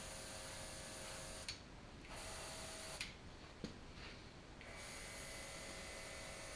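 Faint steady hiss and hum of an otherwise quiet recording. It drops out twice for a second or so, each break marked by a short click, and a third click comes about three and a half seconds in.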